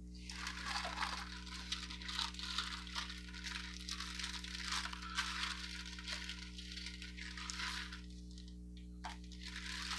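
Rustling, crackling handling noise with small clinks as painting supplies are sorted to get a painting medium ready, stopping about eight seconds in. A steady low electrical hum runs underneath.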